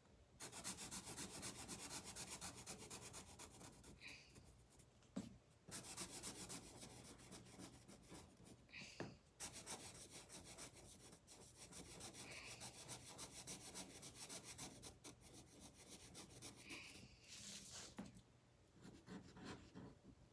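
Felt-tip marker coloring on paper: rapid back-and-forth scratchy strokes, stopping briefly a few times.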